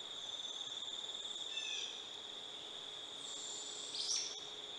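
Insects trilling in one steady, even high-pitched drone. Over it come a few short falling bird chirps about a second and a half in, and a brief high bird call near four seconds in.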